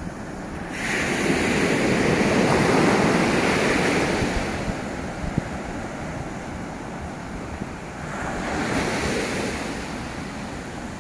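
Ocean surf washing up a sandy beach: one wave rushes in about a second in and runs for a few seconds, and a smaller one follows about eight seconds in. Wind rumbles on the microphone underneath.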